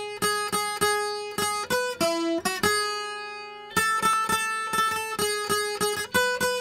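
Clean-toned guitar picking the opening of a theme song: a repeated figure of single plucked notes, about three a second, with one long note left ringing about halfway through before the picking resumes.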